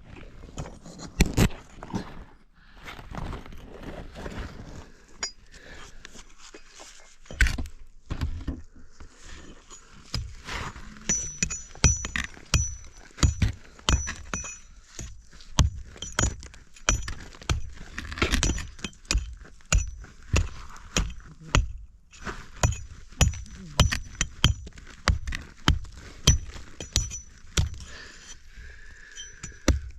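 A hand digging tool striking rock and rubble, with a clinking, breaking sound as the rock comes away. The blows are sparse at first, then come steadily, a little over one a second, from about a third of the way in.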